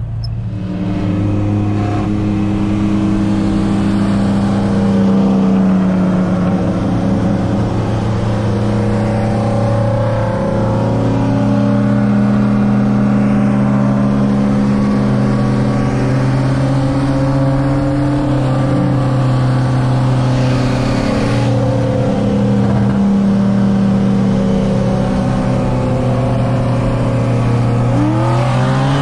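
The engine of a big-turbo Ford Focus ST, a turbocharged 2.0-litre four-cylinder, heard from inside the cabin while driving. It runs steadily and loud, its pitch staying nearly level with a few small shifts and no hard revving.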